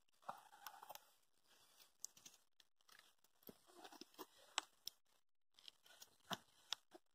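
Wood fire crackling faintly under a boiling pot, with irregular small pops and snaps; the loudest pop comes a little past halfway.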